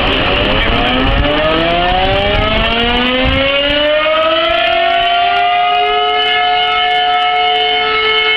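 Fire siren winding up, its pitch rising slowly over about six seconds and then holding at a steady tone.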